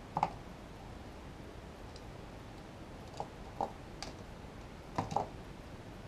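A few light, sharp clicks and knocks, scattered over several seconds, from hands handling a vacuum tube in its socket on a rack preamp's circuit board, over a steady faint hiss.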